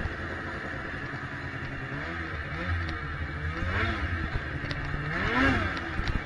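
800cc two-stroke snowmobile engine running under way, its revs rising and easing off with the throttle; the strongest burst of revs comes about five seconds in, climbing and then dropping away.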